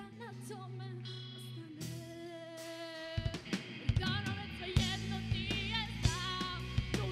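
Teenage girl singing a pop-rock ballad with a band backing her on electric guitar. She holds a long note, then the drum kit comes in about three seconds in and the whole band plays louder under her voice.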